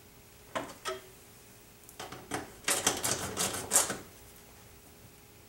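Metal clicks and rattles of hand-tool work on the window regulator inside a car door: two single clicks, then a quick run of clicking from about two to four seconds in.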